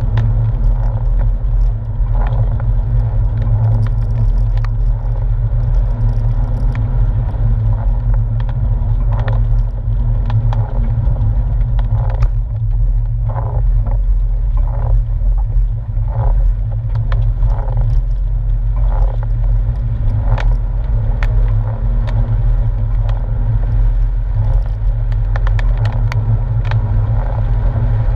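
Porsche 997's rear-mounted flat-six engine and tyres heard from inside the cabin while driving: a steady low rumble, with a few short knocks in the middle.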